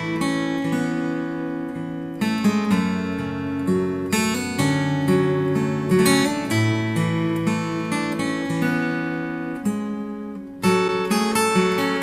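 Background music on acoustic guitar, chords changing every couple of seconds; it fades briefly near the end, then comes back in.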